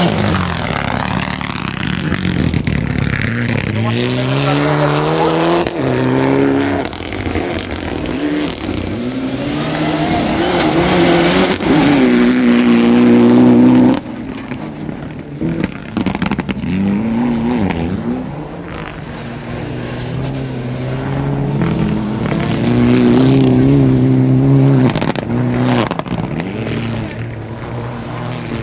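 Rally car engines revving hard on a dirt stage, the pitch climbing and then dropping again and again as the drivers change gear and lift through corners. About halfway through the level drops suddenly and a different car is heard revving through its gears.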